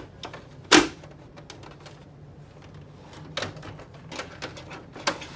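Plastic clicks and knocks of an HP Laser MFP 137fnw laser printer's covers being shut after its toner cartridge is installed: one loud clunk about a second in, then scattered lighter clicks.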